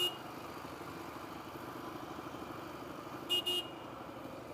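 Vehicle horn giving quick double toots, one ending right at the start and another about three and a half seconds in, over an engine idling steadily.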